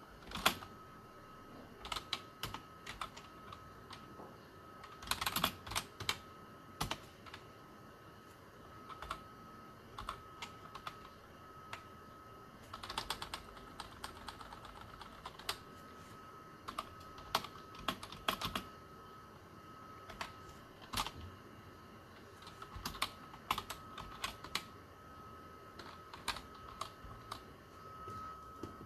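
Typing on a computer keyboard: irregular key clicks, sometimes in quick runs and sometimes singly with pauses, as terminal commands and a text file are entered. A faint steady high-pitched tone sits underneath throughout.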